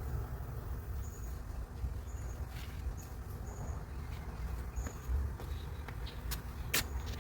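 Outdoor garden ambience: short high chirps repeat about once a second over a steady low rumble, with a few sharp clicks in the second half.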